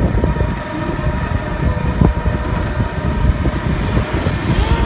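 Ride noise from inside a small open-sided vehicle moving along a road: a steady, rough low rumble of the vehicle and the air rushing past.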